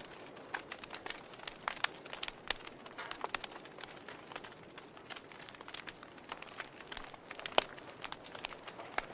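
Wood fire crackling in a fireplace: irregular sharp pops and snaps over a soft hiss, with one louder pop near the end.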